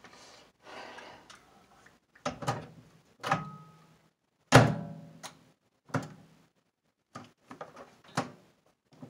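A microwave oven door and its contents being handled: a series of clicks and knocks, the loudest a thunk with a short ring about halfway through as the door is pushed shut.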